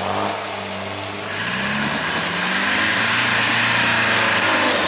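Land Rover 4x4's engine revving under load as it climbs a steep forest track, the revs and loudness rising about a second and a half in and holding high.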